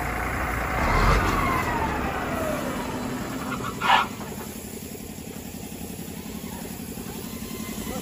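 Caterpillar D7G bulldozer's diesel engine running, louder about a second in with a falling whine, then settling to a steady idle. A brief sharp sound stands out just before the midpoint.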